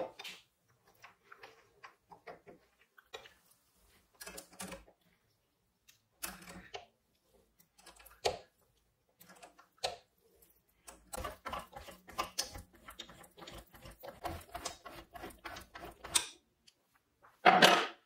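Threading die being turned by hand in a die stock on a metal rod, cutting a thread: irregular short metallic scrapes and clicks, sparse at first and then coming thick and fast for several seconds, with one louder scrape near the end.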